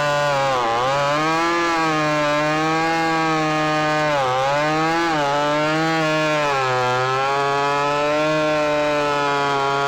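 Ported and piped Stihl MS310 chainsaw with a 28-inch bar running at full throttle through cherry slabwood. Its engine note dips briefly several times as the chain loads up in the cuts, then recovers.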